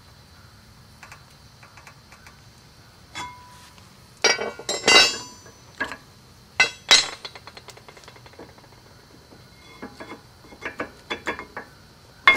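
Metal clinks and clanks of a new brake pad and tools against a disc brake caliper as the pad is worked into place on a 1991 Mercedes-Benz 420 SEL's front brake. A few light clicks come first, then two loud clusters of ringing metallic strikes near the middle, then lighter clicks near the end.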